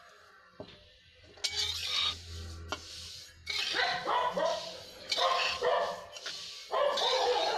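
A spatula scrapes and stirs sesame seeds as they dry-roast in a kadhai. From about three and a half seconds in, a dog barks repeatedly, in short calls, louder than the stirring.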